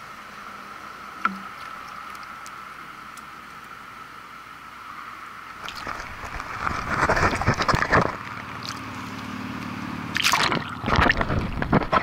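Water sloshing and gurgling around a camera held at the water's surface in grassy shallows, in loud splashy bursts from about halfway through and again near the end. Before that, only a steady faint hiss with a couple of light clicks.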